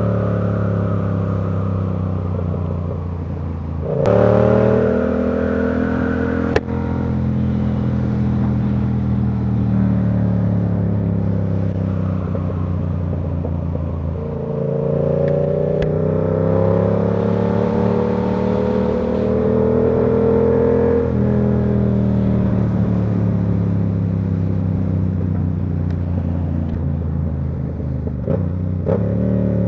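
Yamaha R7 689 cc parallel-twin engine running under way, its pitch rising and falling with the throttle: it drops, jumps up sharply about four seconds in, climbs again near the middle and falls back about two-thirds of the way through.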